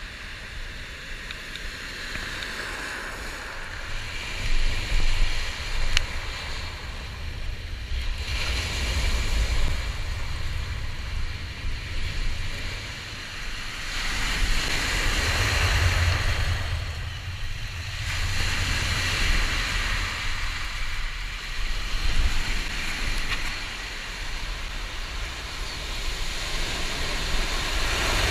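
Surf breaking and washing up a shingle beach, swelling and ebbing in surges every few seconds. Wind rumbles on the microphone throughout.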